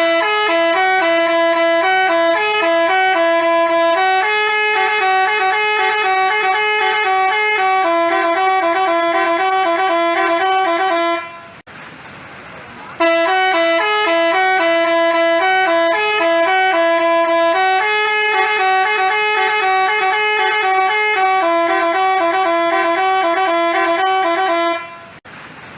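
Telolet basuri multi-tone bus horn playing a melody of stepped tones in two voices, the same tune of about eleven seconds sounded twice with a short pause between.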